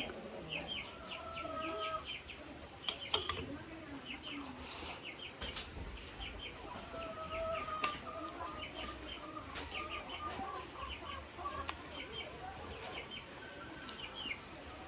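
Domestic chickens clucking, with drawn-out calls lasting about a second each and a steady run of short high chirps. A few light clicks are heard, the loudest about three seconds in.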